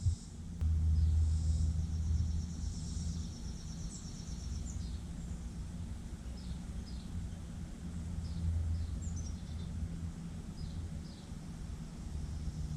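Small birds chirping high and thin, with a quick trill of rapid repeated notes a few seconds in and scattered short falling chirps after it, over a steady low rumble.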